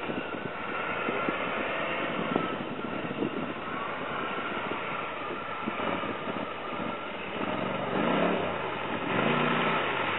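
Off-road vehicle engines running in mud, with one revving in several rising and falling surges in the second half.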